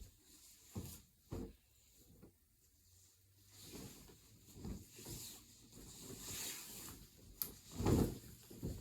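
Massage table being made up by hand: fabric rustling and scattered soft, dull thumps, with a heavier thump near the end.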